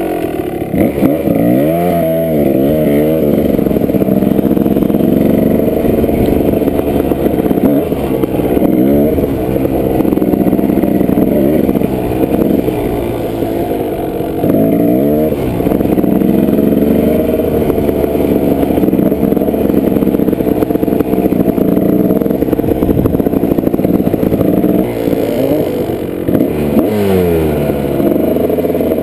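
Kawasaki dirt bike engine running hard under the rider, its pitch rising and falling again and again as the throttle is worked, with faint clattering underneath.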